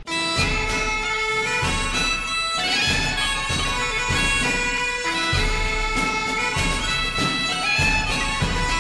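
Background music: a melody of long held notes over a steady beat.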